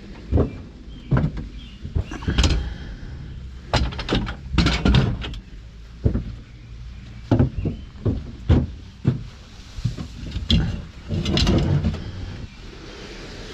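Junk and scrap metal being handled and dropped: a string of irregular knocks, clanks and thumps, with a longer rattling clatter near the end.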